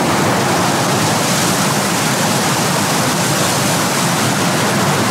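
Whitewater rapids rushing over rocks in a fast river: a loud, steady rush of water.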